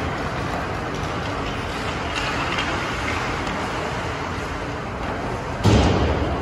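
Echoing ice-rink noise of a hockey game in play, with skates and sticks on the ice. Near the end comes one loud, booming thud that rings on briefly, as something hits the rink boards.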